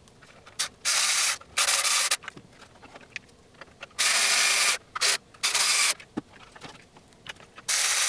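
Handheld electric screwdriver driving screws into a 3D-printed PLA plastic body, running in five short bursts of about half a second to a second each, with pauses between.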